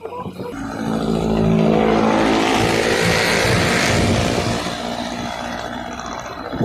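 A motor vehicle's engine running, getting louder over the first couple of seconds, then easing off.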